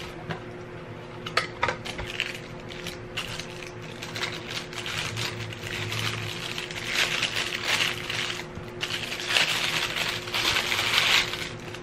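Clear plastic packaging crinkling and rustling as a camera battery charger is unwrapped from it, loudest in the second half. A few sharp clicks of the packaging come within the first two seconds.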